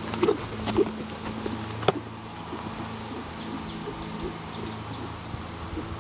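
A steady low hum, with a few sharp knocks in the first two seconds and faint high bird chirps from about two seconds in.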